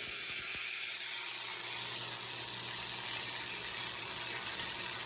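A 1930s shortwave diathermy machine running and driving a single-electrode x-ray tube, giving a steady high-pitched hiss and buzz with a faint low hum underneath.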